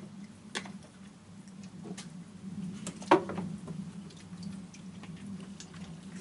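Raccoons feeding on cookies on a wet wooden deck: scattered sharp clicks and taps, the loudest about three seconds in, over a steady low hum.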